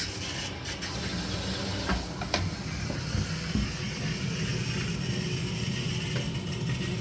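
Water hissing steadily through a Vaillant combi boiler's built-in filling loop as the heating system is topped up to raise its low pressure, over a low hum, with a couple of sharp clicks about two seconds in.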